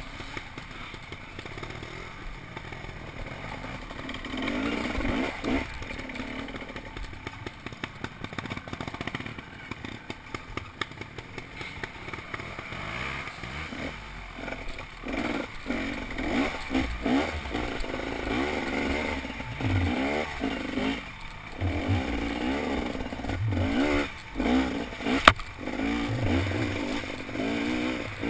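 Off-road motorcycle engine revving up and down over and over with the throttle while ridden over rough ground, with rattles and knocks from the bike and one sharp knock about 25 seconds in.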